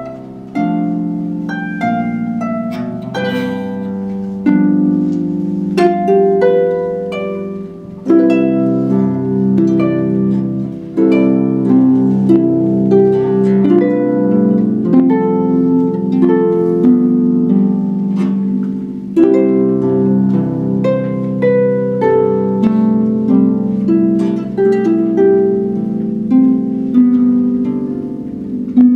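Solo concert harp being played: plucked notes and chords ringing over one another. The playing is sparse at first, then becomes busier and louder about eight seconds in.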